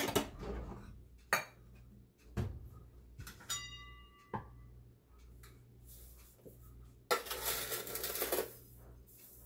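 Metal measuring cups clattering in a kitchen drawer, followed by a few separate knocks and a short metallic ring. About seven seconds in there is a longer scraping rustle as a metal canister is handled.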